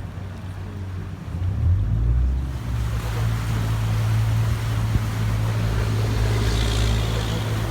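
Tour boat's motor running with a steady low hum, growing louder about one and a half seconds in, over the rush of wind and water.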